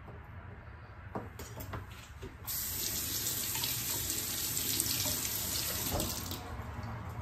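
Kitchen sink tap turned on about two and a half seconds in, water running and splashing into the basin for about four seconds, then easing to a weaker flow near the end. A few light knocks come just before it.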